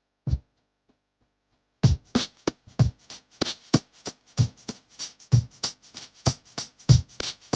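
Background music: a single drum hit, then about two seconds in an electronic drum beat with a low kick and quick hi-hat ticks starts up and runs on.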